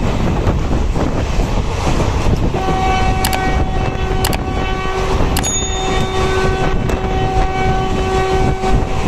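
Rushing wind and rumble of a moving train heard from its open door. About two and a half seconds in, the locomotive horn sounds one long steady blast lasting about six seconds, with a few sharp clicks during it.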